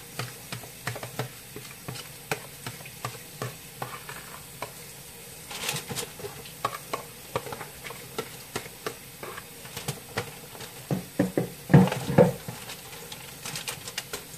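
Marinated chicken feet being scraped by hand out of a plastic mixing bowl into a foil-lined pan: a run of irregular wet taps and clicks, a few a second, with a cluster of louder knocks about eleven to twelve seconds in.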